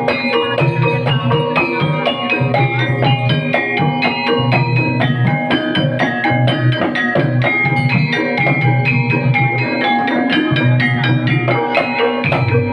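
Banyumasan gamelan music accompanying an ebeg dance: keyed percussion struck in a quick, dense interlocking pattern over drumming, with a low beat recurring about every second and a half.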